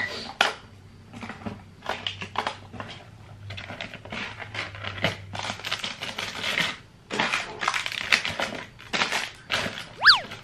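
Makeup products being handled and put away: plastic cases and tubes clicking and clattering, packaging rustling, in a quick irregular run of small knocks. About ten seconds in there is one short squeak that rises and falls.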